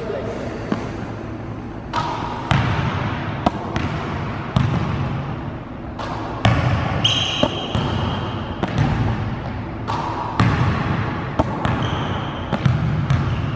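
Basketballs bouncing and smacking on a hardwood gym floor during a passing and shooting drill, in irregular thuds every second or so, with two short high squeaks along the way.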